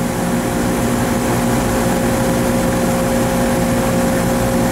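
Scroll compressor of an air-conditioning unit running steadily, a constant hum with two held tones. It is pumping down but barely pulling the suction pressure down: a damaged scroll compressor with very low capacity, leaking from the high side back to the low side.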